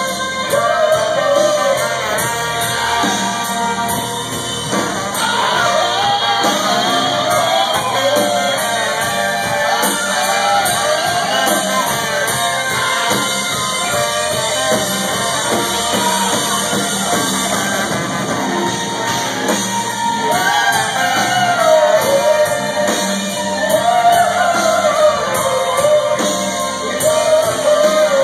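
Live rock band playing in a large room: a singer belting into a microphone over electric guitar, drums and a brass section with trombone and trumpet.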